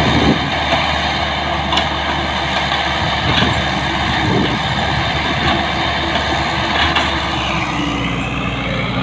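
Heavy diesel truck engine running steadily, with a faint rising whine near the end.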